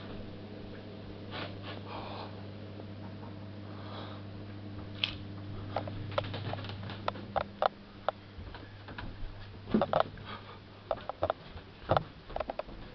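A steady low electrical hum that stops about two-thirds of the way through. It is followed by irregular footsteps and knocks, loudest near the end, as people walk down an indoor staircase.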